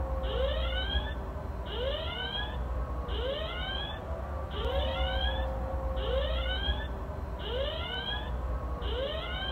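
Security camera's built-in electronic siren sounding a repeating alarm: a rising whoop followed by a buzzy high tone, about once every 1.4 seconds, over a steady low hum.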